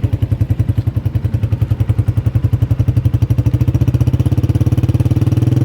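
Honda CG 125 Special Edition's single-cylinder four-stroke engine idling with an even, rapid beat. The owner says the tappets are loose and not yet adjusted.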